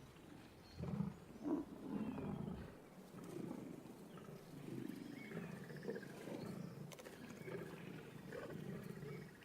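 Male lions growling over a freshly downed buffalo calf: two loud growls about a second in, then a run of lower, rough growls.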